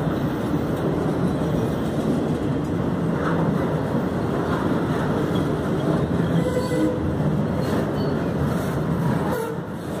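Autorack freight cars rolling past close by: a steady rumble and rattle of steel wheels on the rails.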